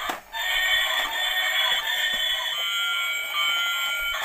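Battery-powered light-up Thomas toy train playing its electronic tune through a small, tinny speaker as it drives itself along. The beeping melody breaks off briefly just after the start, then carries on.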